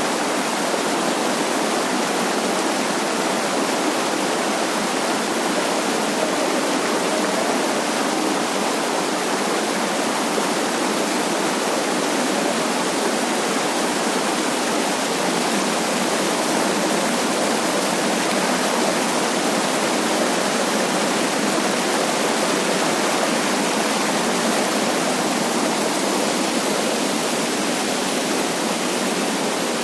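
Running water rushing in a steady, even stream of sound, loud and unchanging throughout.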